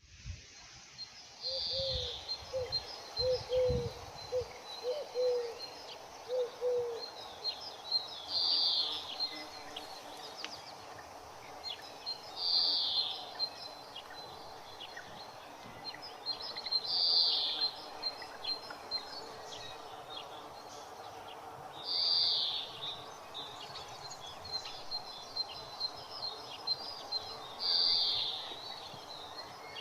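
Birds chirping in the countryside, with a louder high call repeating six times, every four to five seconds. A run of low hooting bird notes in the first seven seconds.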